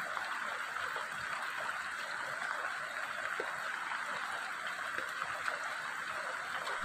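Rain falling steadily on grass and leaves: an even hiss.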